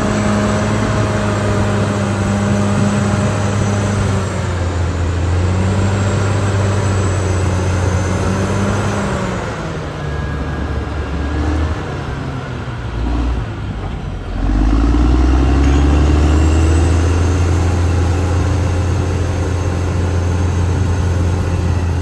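Caterpillar D6R XL bulldozer's diesel engine working, with a high whine over it. The engine drops to a lower, rougher note for a few seconds past the middle, then revs back up about two-thirds of the way through and runs steadily under load.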